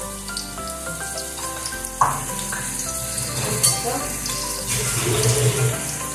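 Background music with steady held notes over chopped onion frying gently in oil in a steel pot, a soft sizzle as crushed garlic is tipped in from a wooden bowl. A sharp knock about two seconds in.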